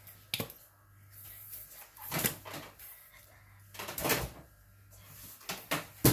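Plastic squeeze bottle of mayonnaise being squirted onto a sandwich: two short squirts about two seconds apart, among a few sharp clicks and knocks of the bottle being handled.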